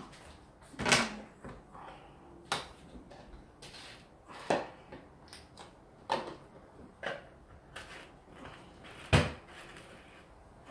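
Kitchen handling sounds: a handful of separate knocks and clunks as containers and a large jug are picked up and set down on the countertop, the loudest about a second in and again near the end.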